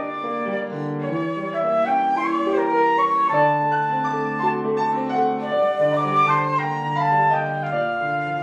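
Classical music played on a woodwind instrument: a melody of held notes over a sustained lower accompaniment.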